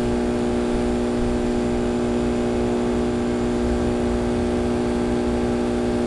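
Steady mechanical hum of a running motor: a few fixed tones over a low rumble, unchanging throughout.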